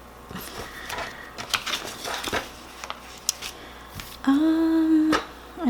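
Light taps, clicks and rustles of paper planner supplies being handled. About four seconds in, a woman gives a short steady hum lasting about a second.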